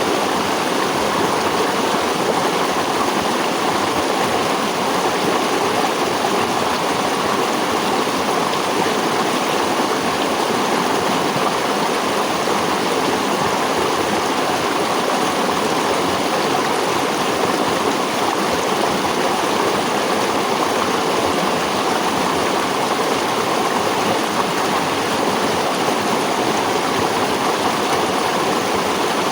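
Running water in nature, flowing steadily as one even, unbroken noise.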